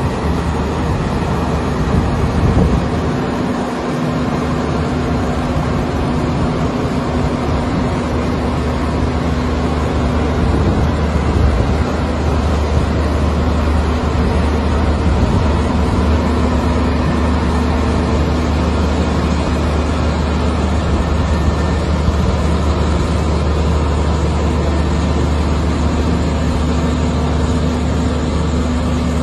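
Engine of a heavy construction machine running steadily, a continuous low drone.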